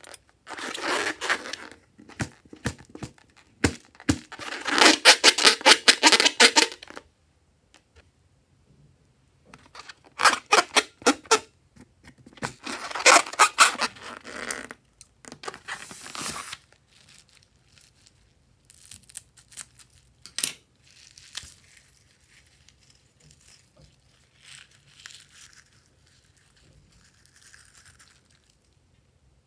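Hands rubbing and squeezing a rubber balloon, in loud bursts of rapid rubbing noise over the first half. After that comes a much fainter rustle of fingers sifting loose glitter and sequins in a glass bowl.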